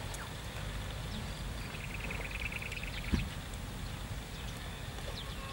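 Birds chirping in short high calls, with one trill about two seconds in, over a steady low rumble. About three seconds in comes a single dull thump, the loudest sound.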